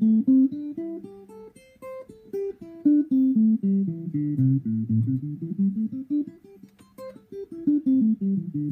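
Clean electric guitar, a Fender Stratocaster, playing the A minor pentatonic scale at the fifth fret one note at a time. The notes climb up the scale, come back down, then climb again. They are plucked alternately with the thumb going down and the index finger pulling up.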